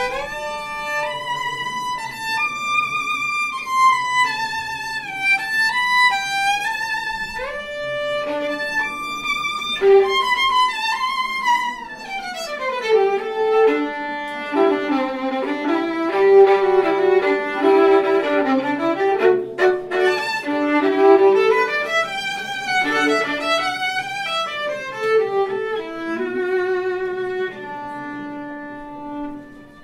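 Solo violin played live, an improvised melody of held notes with vibrato. In the middle a run sweeps down into a busy passage on the low strings and climbs back up, and it settles on quieter held notes near the end.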